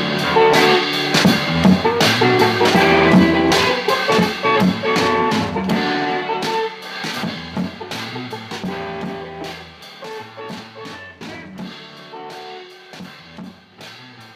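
A song played by guitar and drums, fading out steadily over the second half.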